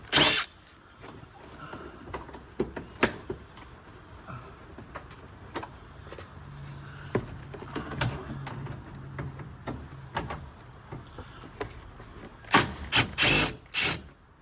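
Cordless drill spinning out bumper bolts in short bursts, once right at the start and several times near the end, with scattered clicks and knocks of tools and trim being handled in between.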